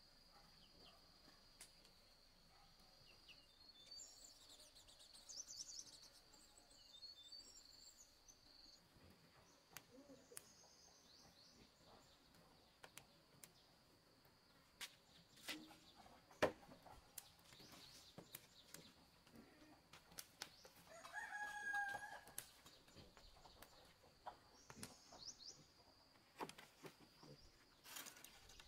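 Quiet rural ambience: a steady high insect drone, a few faint bird chirps and scattered light clicks, with one sharp click about halfway. A rooster crows once, about three-quarters of the way through.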